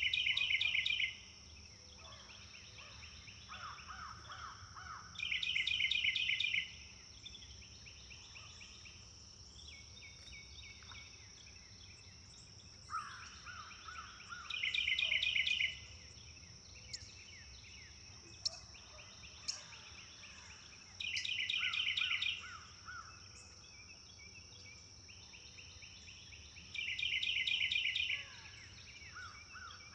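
Wildlife ambience: a steady high hum under bird calls, the loudest a fast chattering burst of just over a second, heard five times, with softer trills between.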